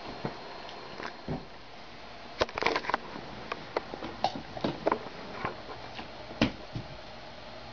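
A scatter of short light taps, clicks and rustles over a steady background hiss, a quick cluster of them about two and a half seconds in and a single sharper one near the end.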